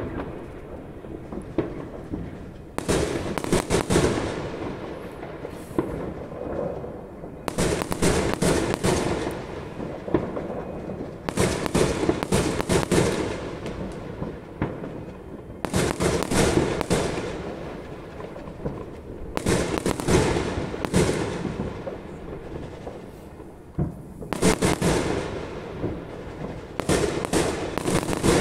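Fireworks going off overhead: aerial shells bursting in quick clusters of sharp bangs and crackles every few seconds, with a continuous low rumble between the clusters.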